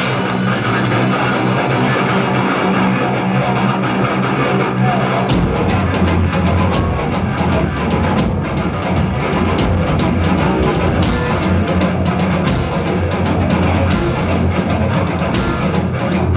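Live heavy metal band playing loud through the venue's PA: electric guitar, keyboards and drum kit. About five seconds in, the low end of bass and drums comes in heavily, and in the second half cymbal crashes land about every second and a half.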